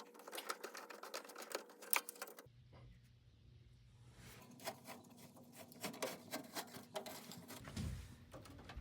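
Faint clicks and light rattles of hands handling small furnace parts (screws, hose and wiring). The clicks come thick at first, stop for a moment about two and a half seconds in, then return more sparsely.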